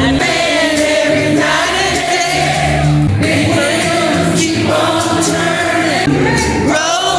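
Music with a group of voices singing over a steady, repeating bass line.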